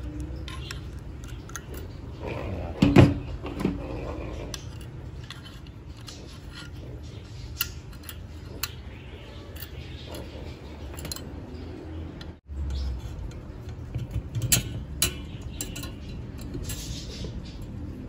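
Metal clicks and clinks of pliers and a steel hood latch assembly being handled while a small coil spring is worked back into the latch. A louder metallic clank about three seconds in, then scattered lighter clicks.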